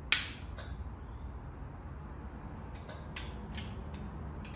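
Metal clicks from a breaker bar and socket on cylinder head bolts while the bolts are turned through the 90-degree angle-torque step: one sharp click just after the start, then lighter clicks and taps about three seconds in, over a low steady hum.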